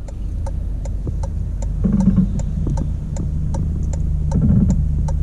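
Cabin sound of a Toyota C-HR's 2.0-litre four-cylinder engine running as the car drives off, a steady low hum that builds slightly. A sharp ticking about three times a second runs under it.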